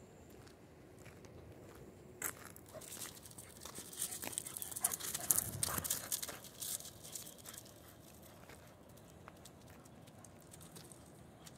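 Crunching and scuffing of steps on gravelly dirt and rubble, starting about two seconds in, loudest a few seconds later and dying away about seven seconds in.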